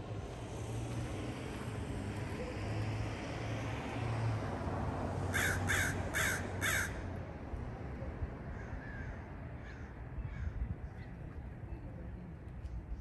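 A crow cawing four times in quick succession, about five and a half seconds in, followed by a few fainter calls.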